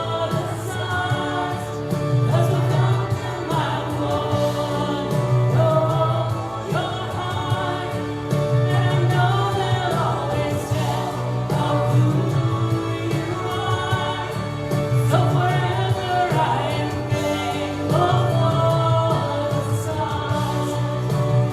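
Contemporary worship song: voices singing held, sliding notes over a band with a steady pulsing bass.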